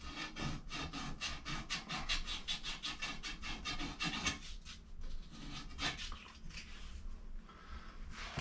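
Sandpaper rubbed back and forth on the freshly cut and deburred end of a copper water pipe, cleaning and smoothing it for the fitting. There are quick, even strokes for about four seconds, then a pause, one stroke, and a few more near the end.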